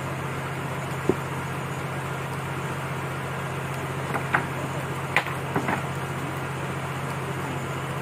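Sawn wooden planks knocking against each other as they are slid onto a stacked load on a cart: one sharp knock about a second in, then a cluster of sharp knocks between about four and six seconds in, over a steady low engine hum.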